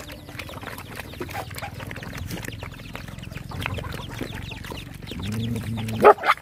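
Several dogs lapping and slurping wet food from a basin, a dense run of short wet clicks. Near the end comes a brief low call, then a loud sharp cry.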